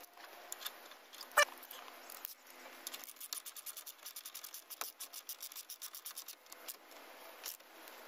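Hand ratchet clicking in a quick run of short strokes as a brake caliper bracket bolt is run in. A single sharp metal clink sounds about a second and a half in.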